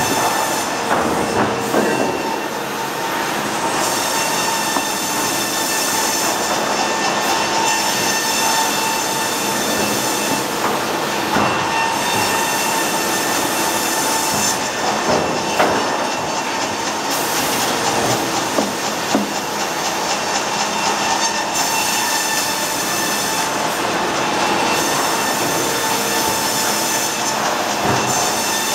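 A 6-foot double-cut band saw headrig running and sawing a log as the carriage feeds it through the blade: a steady mechanical whine over a rushing, rolling clatter, with a few short knocks.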